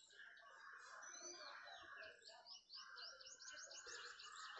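Faint birdsong in the background: scattered high chirps, then a quick run of short repeated rising chirps in the second half.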